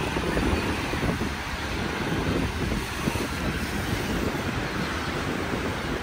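Wind buffeting the microphone over a steady rush of choppy sea.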